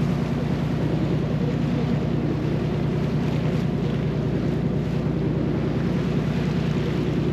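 Boat engine running steadily with a low hum, with wind on the microphone.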